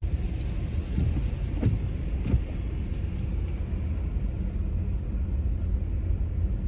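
Steady low rumble of motor vehicle traffic, cars driving on the road.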